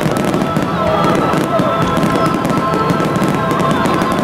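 An aerial fireworks barrage with many shells bursting in quick succession, heard as a dense, continuous crackle without a pause. Music with steady held notes plays underneath.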